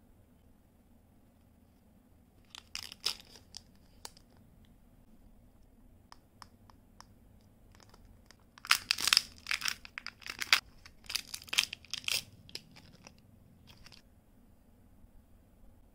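Candy wrappers crinkling and tearing open in short crackly bursts: a brief flurry about three seconds in, then a longer, louder stretch from about nine to twelve seconds, and a last small crackle near the end.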